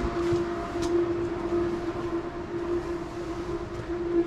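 A steady machine hum holding one pitch, over a low rushing noise.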